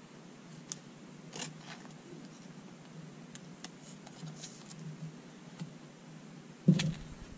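Faint rustling and light clicks of 1981 Fleer baseball cards being handled and sorted by hand, with a single louder thump near the end.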